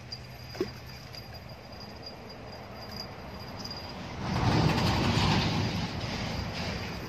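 Water splashing and churning at the surface about four seconds in, lasting around two seconds before fading: a hooked catch thrashing as it is reeled in to the bank.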